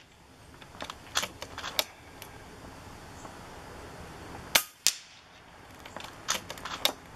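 One shot from a .22 FX Impact PCP air rifle about four and a half seconds in, followed a quarter of a second later by the sharp crack of the pellet striking a hanging steel target. Smaller clicks come in short clusters before and after the shot.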